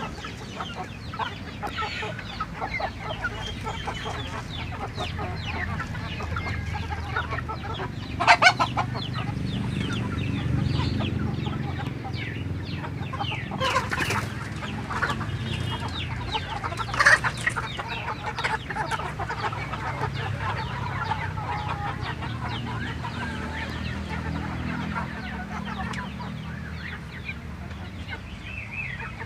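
A flock of village chickens (ayam kampung) clucking continuously, with louder short calls about eight, fourteen and seventeen seconds in.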